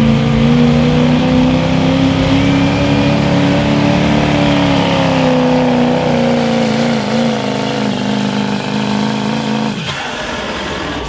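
Ford Super Duty diesel pickup's engine at full throttle under heavy load while pulling a sled. It holds a high, steady pitch that wavers slightly, then drops away abruptly near the end as the driver lets off and the pull stops.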